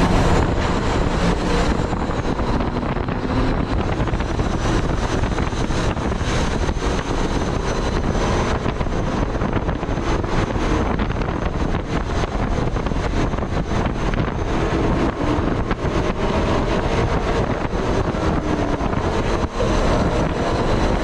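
Steady wind rush, road noise and engine drone of a car at highway speed, heard from inside the car, with wind buffeting the microphone.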